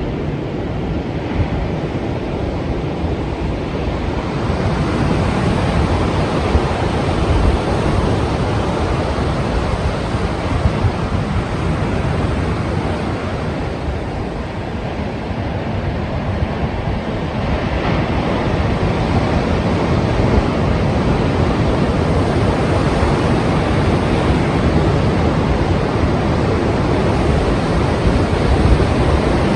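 Strong ocean surf breaking continuously, with wind buffeting the microphone; the noise swells and eases slowly without any distinct single crash.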